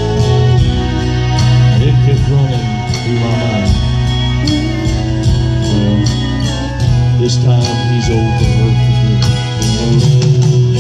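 Live country band playing a ballad, with drums keeping a regular beat under sustained guitar and keyboard tones.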